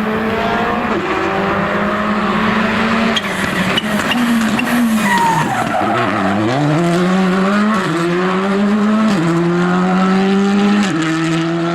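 Rally car's engine revving hard and shifting up through the gears. Around the middle the pitch drops as it slows for a corner, with tyres squealing, then it climbs again through several more upshifts as the car accelerates away.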